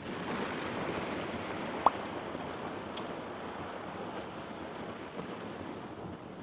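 Steady hiss of water washing along a kayak's hull as it moves across the lake, with a short high chirp about two seconds in and a faint click a second later.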